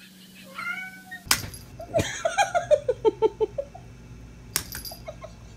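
A person laughing in a quick run of short notes falling in pitch, with a few sharp clicks or knocks.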